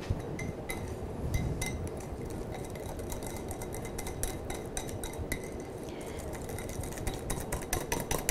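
Wire whisk beating an egg yolk, sugar and cornstarch mixture in a glass bowl for pastry cream: rapid, uneven clicking of the metal wires against the glass.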